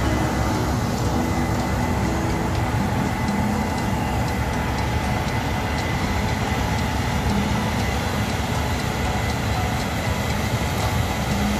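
Combine harvester running steadily under load as it moves off harvesting soybeans, its engine and threshing machinery a dense, even rumble with a faint high whine.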